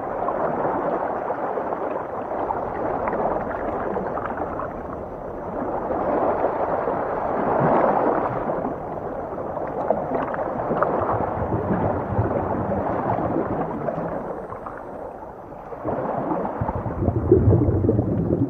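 Underwater ocean ambience: muffled gurgling and sloshing of moving water that swells and eases in slow waves, with a deeper, louder rumble near the end.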